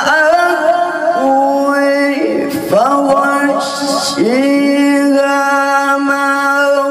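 Melodic Quran recitation (tilawah): one man's voice chanting through a microphone in long held notes with ornamented turns, in three phrases, the last note held for nearly three seconds.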